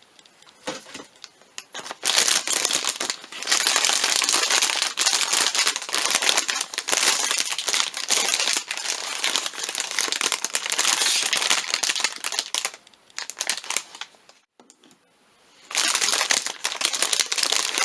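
Plastic packaging bag crinkling and rustling as a blind-box toy is handled and unwrapped, in long busy stretches with a short quiet pause near the end.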